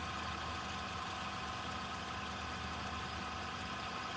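Steady, daunting drone music, a sustained dark chord over a low hum and hiss, with no beat.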